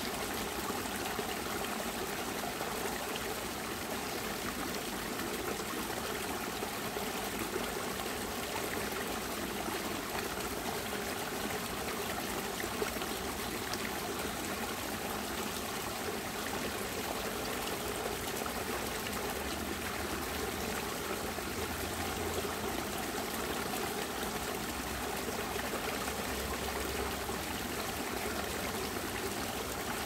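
Waterfall running, a steady, even splashing rush of water with no breaks.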